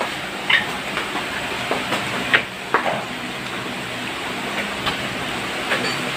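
A steady hiss, with several light, sharp clicks and knocks from plastic PVC pipe fittings being handled.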